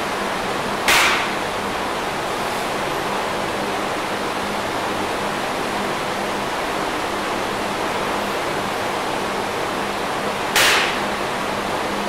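Two sharp, hissing exhalations about ten seconds apart, a lifter breathing out forcefully with each kettlebell snatch, over a steady noise bed with a low hum.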